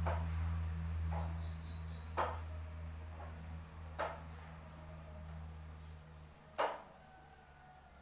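Five sharp knocks and clacks of hard objects being handled while tidying a shelf, the loudest about six and a half seconds in. Underneath is a low steady hum that fades out near the end, with faint high chirping about two seconds in.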